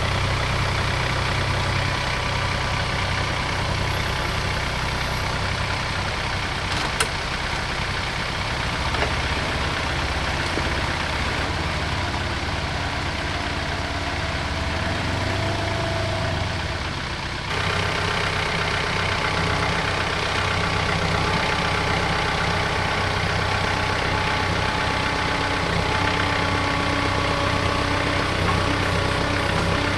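A John Deere 4044M compact tractor's diesel engine running steadily at a low, even pace. About two-thirds of the way through, the sound changes abruptly.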